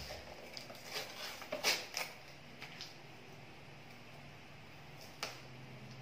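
Gift-wrapping paper rustling and crackling as a child handles and pulls at a wrapped box, with several short crackles in the first three seconds and one more about five seconds in.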